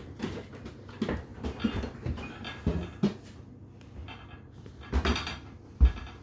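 Knocks and clatters of household objects being handled, scattered irregularly, with a louder cluster of bumps about five seconds in.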